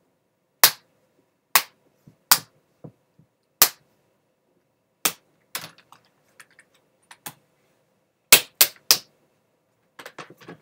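Plastic display bezel of a Dell Inspiron 15R 5520 laptop being pried off, its clips snapping loose one after another: a string of sharp snaps at uneven intervals, with three close together about eight seconds in.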